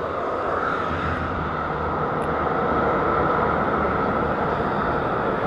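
Steady noise of highway traffic passing on a motorway, mostly tyre noise, growing slightly louder a couple of seconds in.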